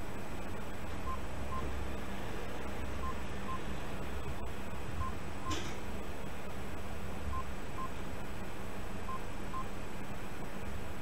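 Electronic alert beeps from an earthquake-monitoring display: short high double beeps repeating about every two seconds over a steady low hum.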